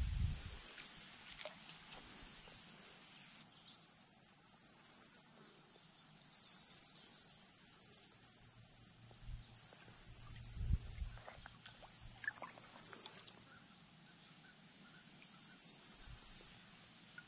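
Insects singing a high-pitched buzz in phrases of one to two seconds with short breaks between them. A soft low thump comes a little past halfway.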